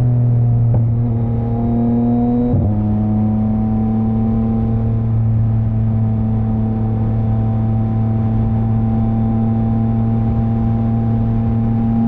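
Yamaha MT-09's inline three-cylinder engine running steadily under way, its pitch creeping slowly upward, with a brief break in the note about two and a half seconds in.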